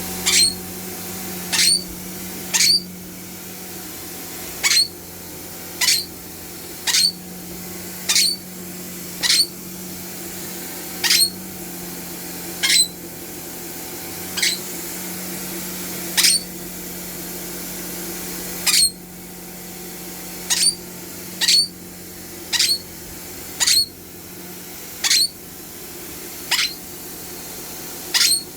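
Vacuum cleaner running steadily while a pet being vacuumed gives about twenty short, high-pitched squeaks, roughly one a second with an occasional longer gap.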